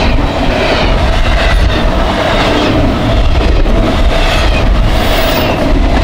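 Double-stack intermodal container train's well cars passing close at speed: a steady, loud rumble and clatter of steel wheels on the rails, swelling about once a second as each set of wheels goes by.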